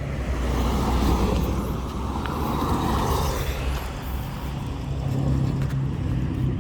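Road traffic going past close by: a car's tyres and engine swell up and fade in the first half, and another vehicle passes, more quietly, near the end.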